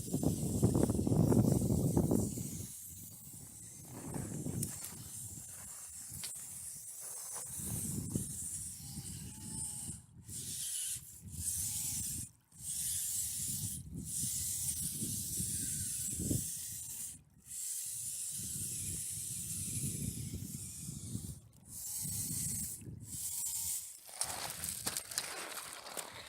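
Wind buffeting the microphone in gusts, loudest in the first couple of seconds, over the high whir of a 1/24-scale RC rock crawler's small electric motor and gears, which stops briefly several times as the throttle is let off.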